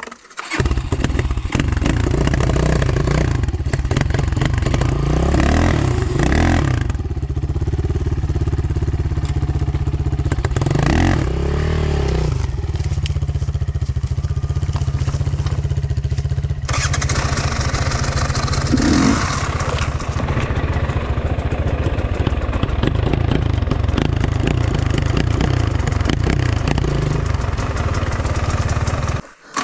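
Enduro motorcycle engine running with a strong low note, coming in suddenly about half a second in and revved up and down a few times in the first dozen seconds.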